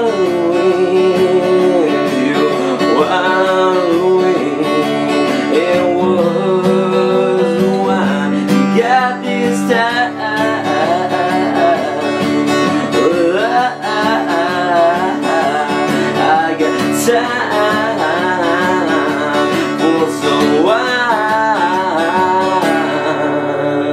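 A man singing with a strummed acoustic guitar.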